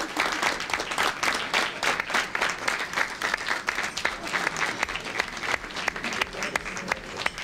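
Sustained applause from a group of people clapping by hand, many quick overlapping claps.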